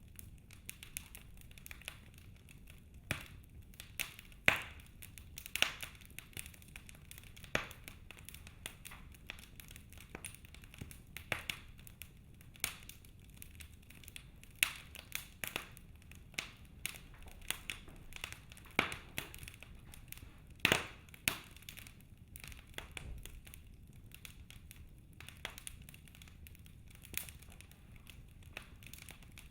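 Wood fire crackling in a fireplace: irregular sharp pops and snaps, some much louder than others, over a faint steady background noise.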